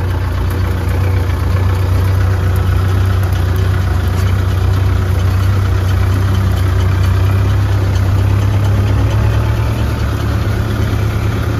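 Tractor diesel engine running steadily, an even low hum that holds at one speed throughout.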